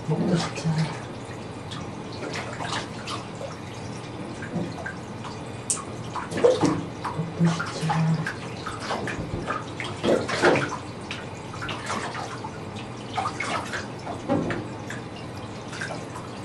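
Water splashing and dripping into a bathtub in irregular bursts as a child's head is washed by hand over the tub's edge.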